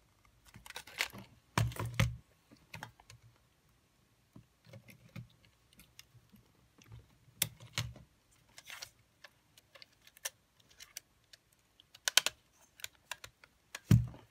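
Irregular clicks and taps of small parts being handled as a Sony EX999 cassette player is put back together by hand.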